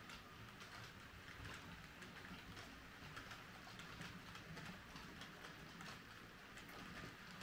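Faint clicking of H0-scale model freight wagons rolling over the rail joints: an irregular patter of small wheel clicks over a low hiss.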